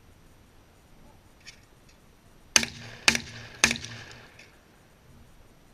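Three shotgun shots in quick succession, about half a second apart, each with a short ringing tail, shortly after a faint click.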